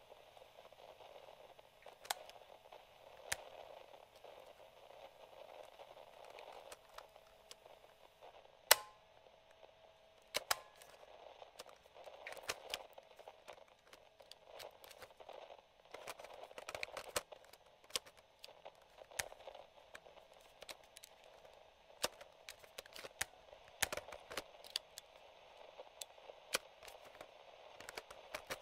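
Mechanical piano-key buttons of a vintage Sony cassette recorder being pressed and released, giving irregular sharp clicks with one loud clack about nine seconds in, over faint steady radio static hiss.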